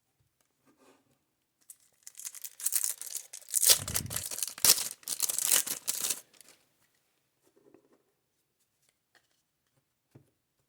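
Rustling, tearing-like noise of baseball cards and their packaging being handled, lasting about four seconds from two seconds in, with a few faint ticks before and after.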